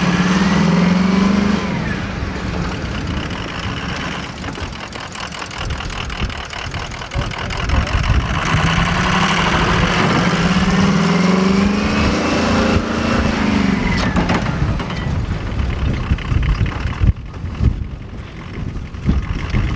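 Engines of a pickup truck and a stuck SUV revving under load as the truck pulls the SUV out of snow on a tow strap. The revving comes in two surges that rise and fall: a short one ending a second or so in, and a longer one about eight to twelve seconds in.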